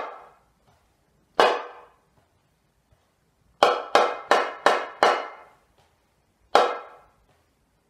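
Hand-held frame drum struck with a wooden beater, playing a rhythm in three-four time: single strokes, then a quick run of five, then one more. Each stroke rings briefly and dies away.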